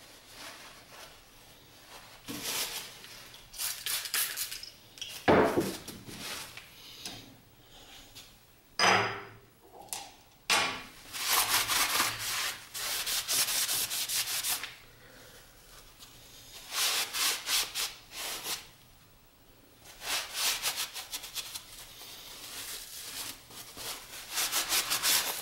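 Cloth rag wiping and scrubbing the bare metal end of a milling machine's table, in spells of quick back-and-forth strokes. Two sharper knocks come about five and nine seconds in.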